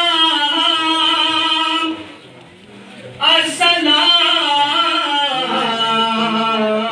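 A man singing a noha, a Shia mourning chant, with no instruments. He holds one long drawn-out phrase, pauses for about a second, then sings another long phrase.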